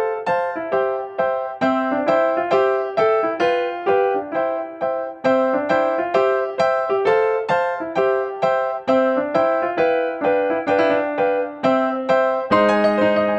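Background music: a bright keyboard melody of short struck notes, about two a second, each fading quickly. Near the end a fuller, lower accompaniment comes in.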